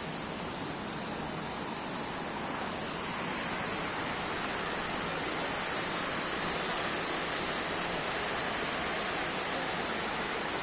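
Waterfall: a steady rush of falling water that gets a little louder about three seconds in.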